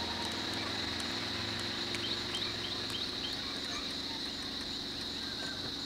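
A steady, high-pitched insect drone with a low vehicle engine idling underneath. A bird gives a quick run of about five short rising chirps a couple of seconds in.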